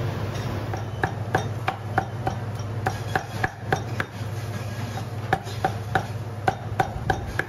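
Cleaver chopping cooked turkey meat on a thick round wooden chopping block: sharp ringing knocks about three a second, starting about a second in, over a steady low hum.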